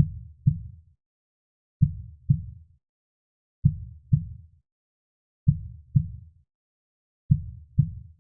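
Heartbeat sound: five pairs of low lub-dub thuds, the two beats of each pair about half a second apart, repeating slowly and evenly about every 1.8 seconds.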